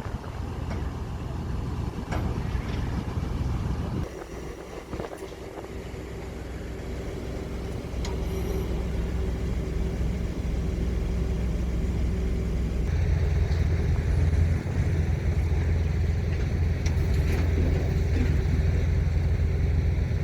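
Truck crane's diesel engine running steadily. It drops back about four seconds in, then grows louder in steps about eight and thirteen seconds in.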